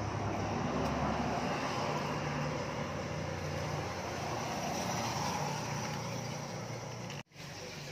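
Vehicle running steadily, a low engine hum under road noise, cut off abruptly near the end.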